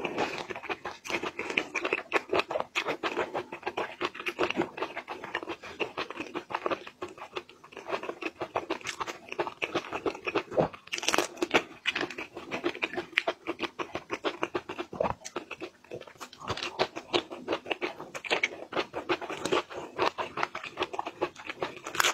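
Close-miked chewing of shrimp and fish roe: a dense, irregular run of small crunches, pops and wet mouth clicks.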